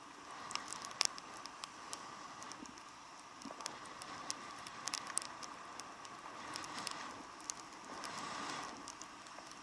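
Raindrops ticking irregularly on the camera over a steady muffled rush from a motorcycle riding in the rain.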